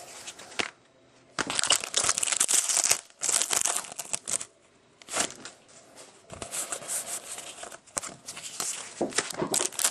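Clear plastic trading card pack wrapper crinkling as it is torn open and handled, in irregular bursts that stop and start several times.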